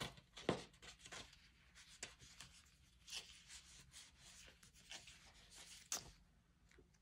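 Faint rustling and brushing of paper as the large pages of sticker books are flipped through, with a few light clicks and taps.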